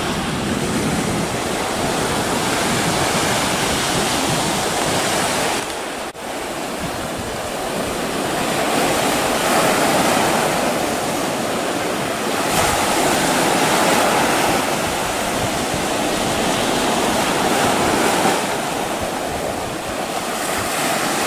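Sea surf breaking and washing over shoreline rocks and boulders, a steady rush that swells every few seconds as waves come in, briefly dropping away about six seconds in.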